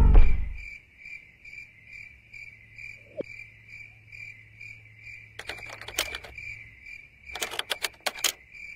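Cricket-chirp sound effect, a steady pulsing chirp about twice a second, the stock gag for an awkward silence. About five seconds in, and again near the end, come clusters of sharp plastic clicks as a hand pushes and twists a small plastic cube camera.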